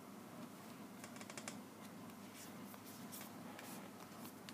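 Faint, scattered light clicks and rustles of tarot cards being handled and laid down on a table, over a low steady hum.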